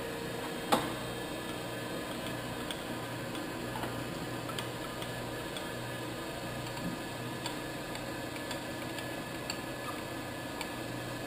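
Grand Rapids Model 560 surface grinder running with a steady hum and a low drone that pulses on and off, while its table is worked by hand. A sharp clack comes about a second in, followed by light, irregular ticks.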